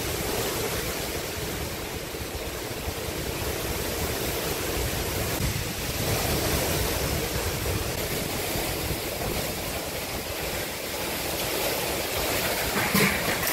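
Derecho wind blowing hard and unbroken with driving rain, gusts buffeting the microphone. A few brief knocks near the end.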